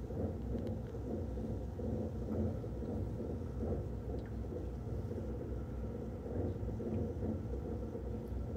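Underwater treadmill running with a dog walking on its submerged belt: a steady low rumble of the treadmill motor and moving water.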